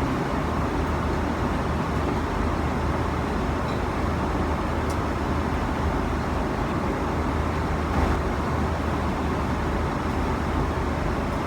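Airliner cabin noise in flight: the steady, even rumble of the engines and airflow, deepest in the bass.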